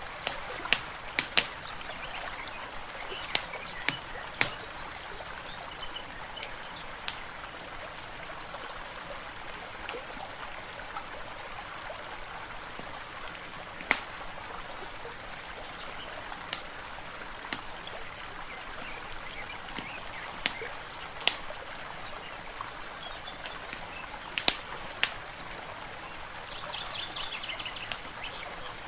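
Wood fire crackling in a fireplace, with irregular sharp pops over a steady hiss of gently running water. A bird chirps briefly near the end.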